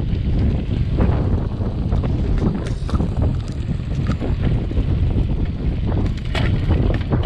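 Wind buffeting the microphone of a camera carried on a mountain bike ride over a dirt trail: a steady low rumble, with scattered short clicks and rattles from the moving bike.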